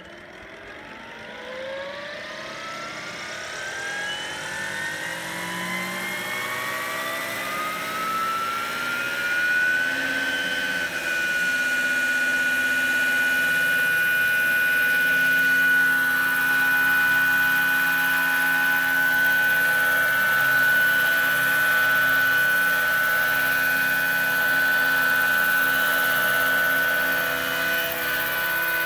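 Electric motor and rotor of a large-scale Vario BO 105 model helicopter spooling up: a whine rising in pitch for about ten seconds, then holding steady once the rotor reaches flying speed.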